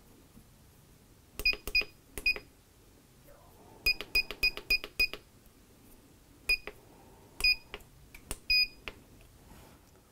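Short electronic beeps from the Qinsi QS-5100 reflow oven's control panel as its buttons are pressed, each with a light key click. A few single beeps come first, then a quick run of about seven near the middle, then a few more spaced out.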